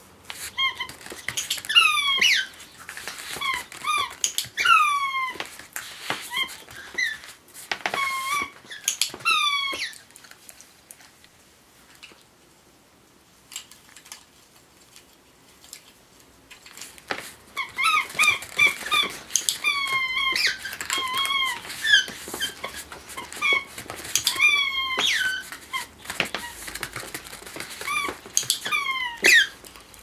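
A rubber smiley-face squeaky toy squeaks again and again as a dog's front paw presses on it. The squeaks are short and fall in pitch. They come in two long runs, with a quieter pause of several seconds about a third of the way in.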